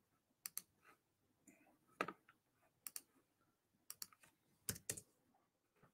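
Faint computer keyboard typing: a dozen or so sharp key clicks in irregular clusters, loudest about two seconds in and again just before the end.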